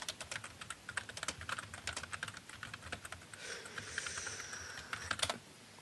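Typing on a computer keyboard: a fast, uneven run of keystrokes that stops about five seconds in.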